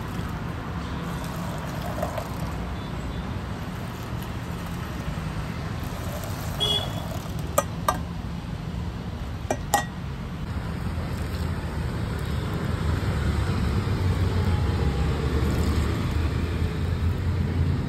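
Steady low rumble of street traffic, growing a little louder in the second half, with a few sharp metal clinks about halfway through from a steel ladle knocking against a steel pot.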